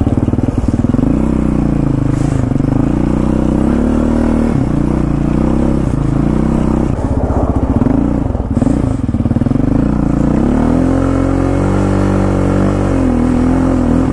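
Yamaha Raptor 700R quad's single-cylinder four-stroke engine running under way, its pitch rising and falling with the throttle, then holding steadier from about ten seconds in.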